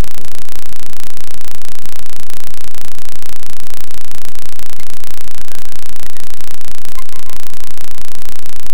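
Loud, steady static-like noise filling every pitch, with a few faint high tones coming through near the end.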